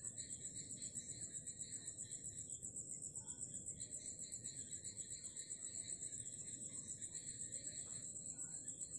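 Insects trilling: a steady, high-pitched pulsing song, about seven pulses a second, with a low background hiss underneath.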